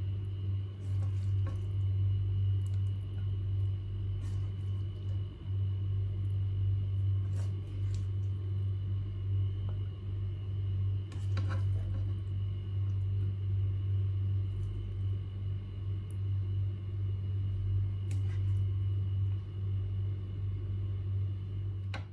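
A steady low hum runs throughout, with scattered light clinks and taps of a serving spoon against dishware as the cooked macaroni is dished out onto a plate.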